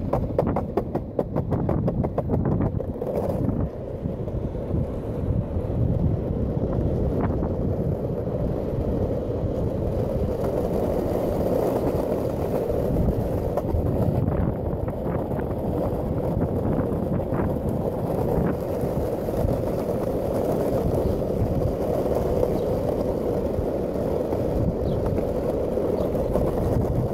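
Longboard wheels rolling over pavement: a steady rumble, with fast rattling clicks in the first few seconds and wind buffeting the microphone.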